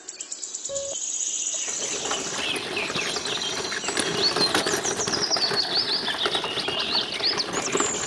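Many small birds chirping together, quick high calls in a dense chorus over a busy rustling, pattering noise. It swells in about two seconds in.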